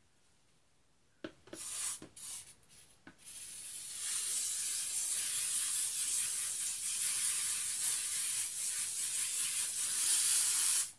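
A few short bursts of hissing spray, then a long steady high hiss that cuts off suddenly.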